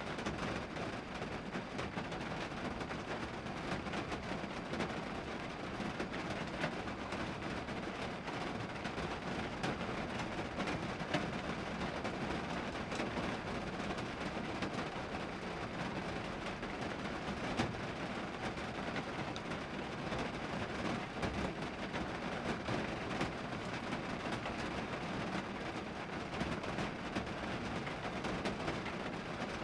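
Steady rain hitting a vehicle's metal roof and glass, heard from inside the cabin: a dense, even patter of drop hits, with a few louder single drops standing out.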